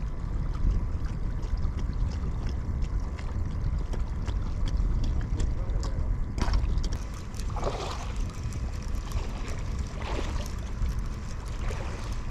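Wind buffeting the microphone, a steady low rumble, with a few faint clicks and rustles about six, eight and ten seconds in.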